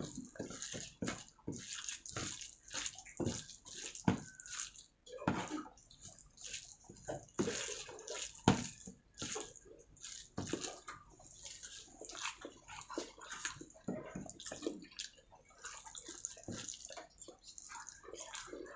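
Close-miked eating sounds: wet chewing and mouth smacks on mouthfuls of rice with chilli chicken gravy, many irregular clicks several times a second.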